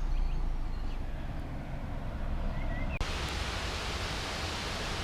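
Outdoor wind noise rumbling on the microphone, with a few faint chirps. About three seconds in it cuts abruptly to a steadier, brighter hiss.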